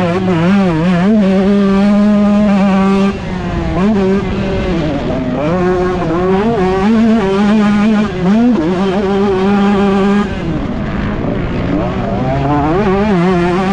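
Husqvarna TC125 two-stroke motocross engine revving hard and dropping off again and again, held at high revs for stretches, with the throttle shut off sharply about three seconds in and again about ten seconds in.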